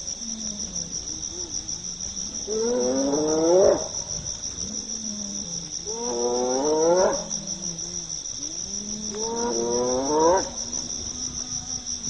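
Spotted hyenas whooping: three rising calls a few seconds apart, each climbing in pitch and then cutting off, over a steady high chirring of crickets.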